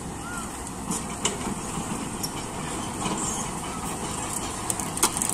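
Heavy diesel machinery engine running steadily, with a few sharp metal clanks about a second in and a louder one near the end.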